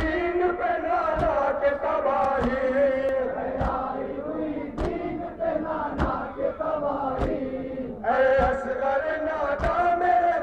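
Group of men chanting a Urdu noha lament together in long held notes, with the sharp slap of hands beating on chests (matam) in a steady beat, about one stroke every 1.2 seconds.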